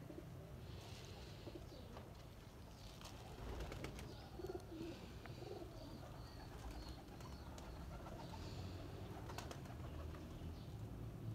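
Domestic pigeons cooing low and steady, with a few scattered light clicks.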